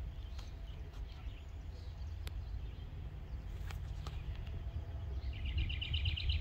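Birds chirping, with a fast trill of rapidly repeated notes near the end, over a low rumble that grows steadily louder.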